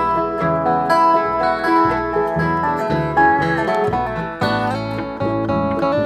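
Bluegrass band playing an instrumental passage: picked acoustic guitar, banjo and resonator guitar over upright bass notes about twice a second.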